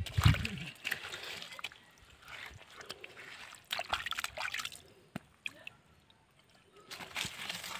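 Shallow, muddy stream water sloshing and splashing in irregular bursts, with a heavy low thump just after the start.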